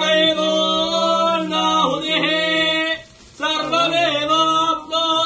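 A group of male voices chanting Vedic mantras together in long held tones, in two phrases with a short breath break about three seconds in.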